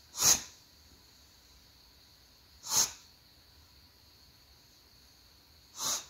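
English bulldog sneezing three times, a short sharp burst about every two and a half to three seconds.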